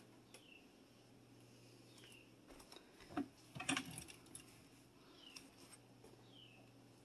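Faint handling noise of clothes being put away in dresser drawers, with a few light knocks about three to four seconds in.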